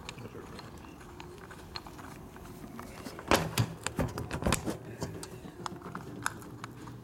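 Small metal clinks and taps as a socket and bolts are handled on a motorcycle brake caliper, with a quick run of sharper clicks about halfway through, over a steady low hum.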